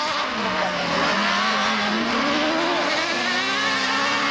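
Autocross buggies' engines racing on a dirt track. The engine note dips about half a second in, then climbs and wavers up and down as the cars accelerate and lift off.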